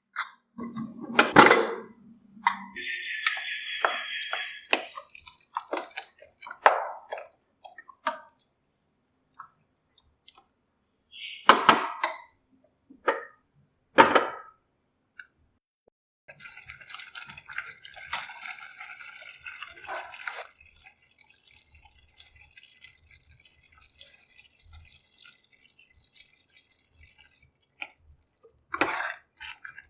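Kitchen utensils and dishes clinking and knocking in separate strokes, with a few seconds of dripping, liquid sound about two-thirds of the way through.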